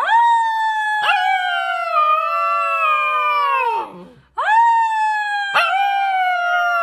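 A black-and-white husky puppy howling: two long howls, each rising quickly at the start and then sliding slowly down in pitch, with a short crack in the voice partway through each. The second howl begins about four seconds in.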